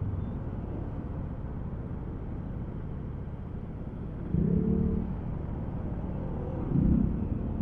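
Steady low rumble of a motorcycle riding across a bridge in traffic, engine and road noise together. Two brief louder pitched sounds come through, about four and a half seconds in and again near the end.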